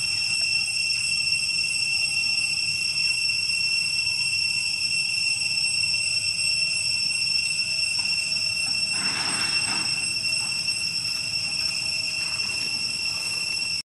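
Steady, high-pitched insect drone, typical of cicadas, holding one unbroken whistling pitch. A brief rustle, like dry leaves being disturbed, comes about nine seconds in.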